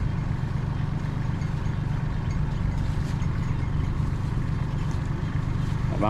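An engine running steadily, giving a low, even drone.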